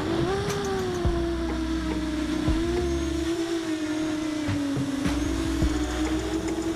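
Motors and propellers of a 7-inch FPV quadcopter (1200kv DJI Mavic Pro motors) whining steadily. The pitch rises about the start as the quad pulls up from a low pass, then wavers with the throttle. Wind rumbles and buffets on the onboard camera's microphone underneath.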